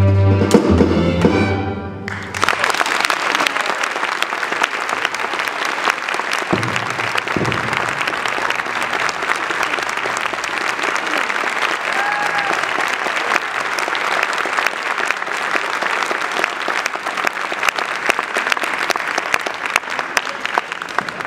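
A school orchestra holds its final chord, which cuts off about two seconds in. Then the audience applauds steadily.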